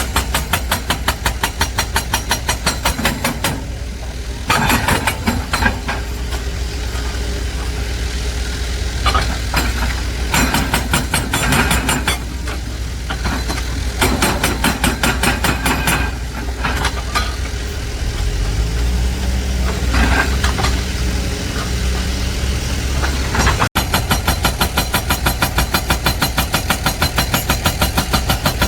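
Heavy diesel truck engine running with a fast, even clatter. In the middle the sound turns uneven with louder bursts, then settles into a steady low drone. Near the end it cuts off abruptly, and the clatter returns.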